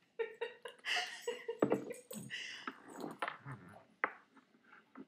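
Wheaten terriers eating dog biscuits from a person's hands: crunching, chewing and snuffling, with short voiced sounds mixed in.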